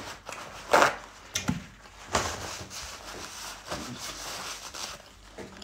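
Paper towel rustling and tearing as sheets are pulled off a kitchen roll and crumpled to wipe the mouth: a series of short papery rasps, the loudest about a second in.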